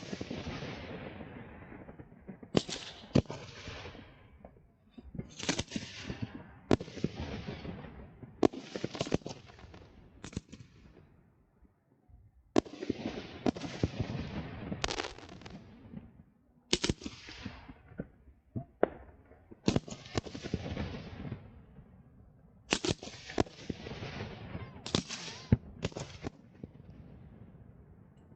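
Fireworks display: a rapid series of sharp bangs, one every second or two, each trailing off in a fading rush of sound, with a couple of short lulls between volleys.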